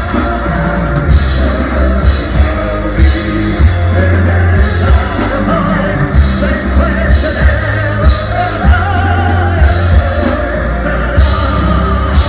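Live heavy metal band playing, with singing over distorted guitars, heavy bass and drums hitting a steady beat.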